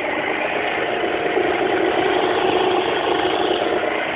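Aprilia scooter engine idling steadily, heard close to its exhaust.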